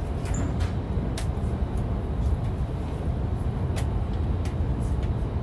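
Hayabusa shinkansen running, heard inside the passenger cabin: a steady low rumble with a few light clicks.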